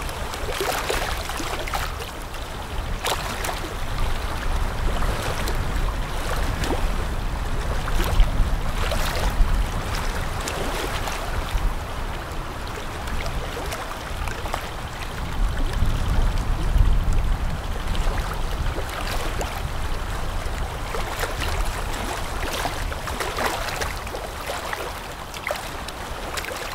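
Water rushing and splashing along a passing container ship's hull and bow wave, over a low rumble that swells and eases.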